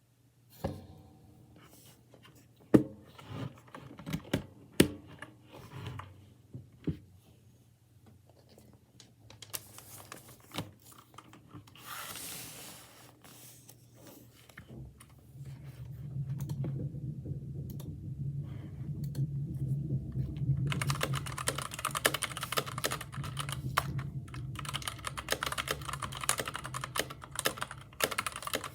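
Mechanical keyboard with red linear switches being typed on. At first there are scattered single keystrokes. About halfway through it settles into steady, fast typing, which grows louder near the end.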